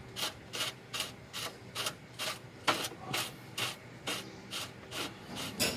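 Engine-mount bolt being run in with quick repeated strokes of a hand tool, a short rasping stroke about twice a second.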